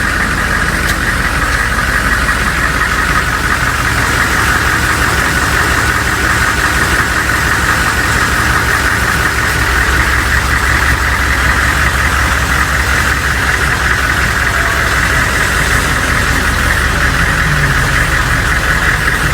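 Humvee's V8 diesel engine running steadily.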